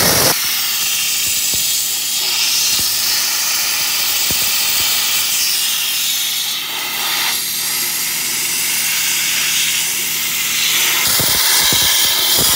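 Sandblaster nozzle blasting abrasive onto steel girders: a loud, steady hiss of high-pressure air and grit, with a few low knocks near the end.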